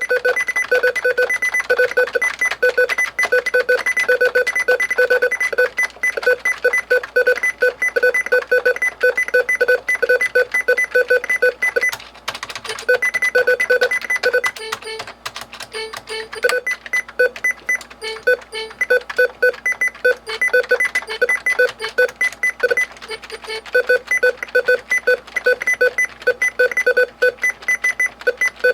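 A keyboard beeping: short, high electronic beeps repeating evenly at two or three a second. The beeping breaks off for a couple of seconds about twelve seconds in, with a few clicks, then starts again.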